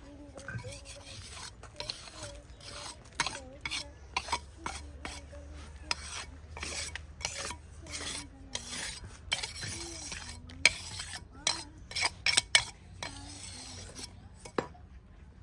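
Small hand trowel scraping and patting wet cement mix into a pot mould, a run of gritty strokes with sharp clinks where the blade knocks the mould rim and the pipe core. The clinks come thickest and loudest about ten to thirteen seconds in.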